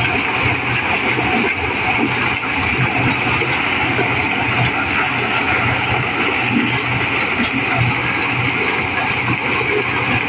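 Diesel-driven mobile corn sheller (dos jagung) running steadily under load as it shells unhusked corn. Its engine and threshing drum make a constant loud din with an even low throb.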